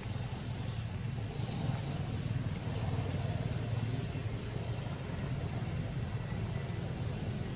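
Low, steady rumble of a motor vehicle's engine, growing louder through the middle and easing off near the end.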